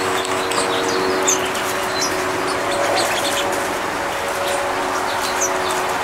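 Small songbirds chirping: many short, high chirps scattered throughout, over a steady background hum with a few steady low tones.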